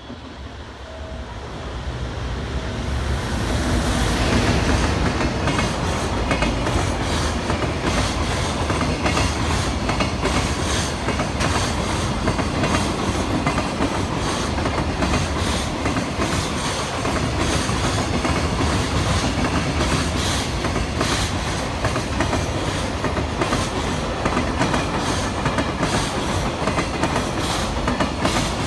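EF510 electric locomotive and its long container freight train passing at speed: a steady rumble of wheels on rail with rapid clickety-clack over the joints, growing louder over the first four seconds as the locomotive arrives, then holding steady as the wagons roll by.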